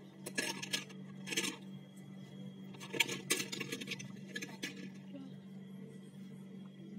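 Light clicks and clinks of small hard objects being handled, in short clusters near the start, about a second and a half in, around three seconds and again a little later, over a steady low hum.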